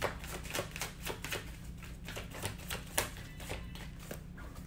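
Tarot cards shuffled by hand: a run of quick, irregular papery snaps and clicks as the cards slide and tap against each other.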